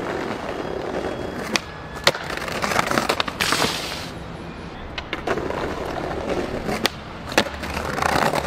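Skateboard wheels rolling over brick paving, broken by several sharp clacks of the board popping, landing and slapping the ground during trick attempts.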